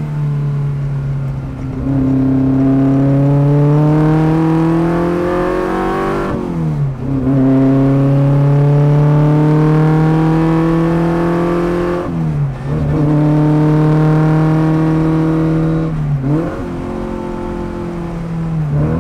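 A classic racing car's engine, heard from on board at a steady level, pulls hard through the gears. Its note climbs through each gear and drops with upshifts about six seconds in, about twelve seconds in and about sixteen seconds in. After the last shift it runs on at a lower, steadier note.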